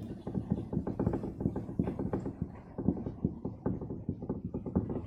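Marker writing on a whiteboard: a dense, unbroken run of quick scratches and taps as the words are written out.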